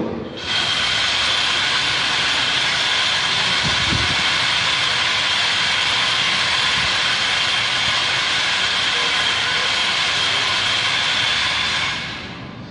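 Liturgical signal sounded without pause during the elevation of the host at the consecration: a steady, high-pitched rushing noise with a few held tones. It lasts about twelve seconds and fades out near the end.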